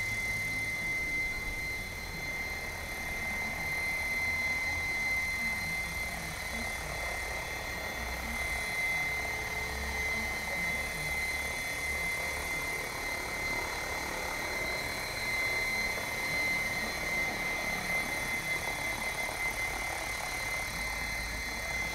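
Assault 700 electric RC helicopter in steady flight: a constant high whine over a low rotor hum, running evenly with no change in speed.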